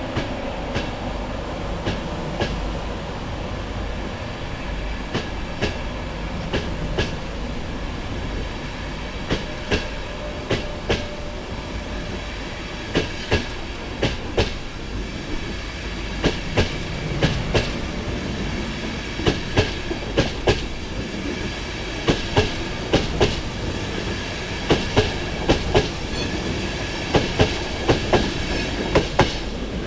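A train rolling past, its wheels clicking over rail joints in groups of two to four above a steady rumble. The clicks come louder and closer together in the second half.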